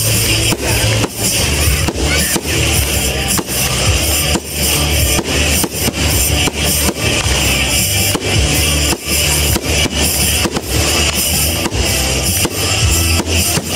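Music playing over the repeated bangs of aerial firework shells bursting.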